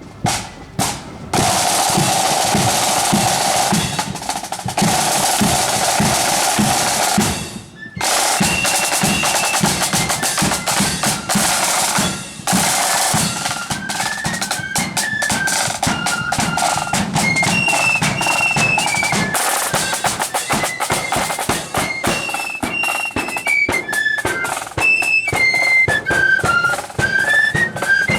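Marching flute band: snare drums play rolls with the bass drum, then about eight seconds in the flutes come in with a tune over the drums.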